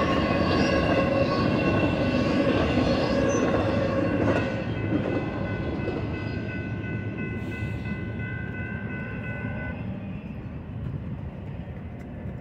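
The last cars of a BNSF double-stack intermodal freight train rolling past on the rails. The rumble drops off about four seconds in as the tail end clears, then keeps fading. Steady high ringing tones sound over it and stop about ten seconds in.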